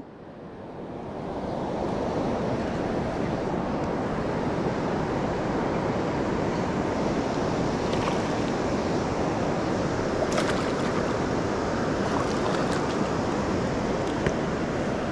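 Steady rush of river water mixed with wind on the microphone, fading in over the first second or two, with a few faint ticks in the second half.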